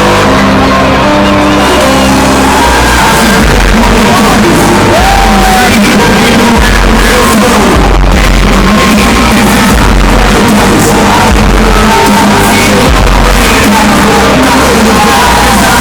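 Hardstyle DJ set played very loud over a large hall's sound system, heard through the crowd with voices shouting along. Held bass notes open it, then heavy low bass hits pound through the rest.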